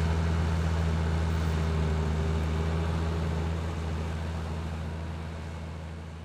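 Tractor engine running steadily under load while pulling a tine cultivator through dry soil, a deep, even hum that fades away over the last couple of seconds.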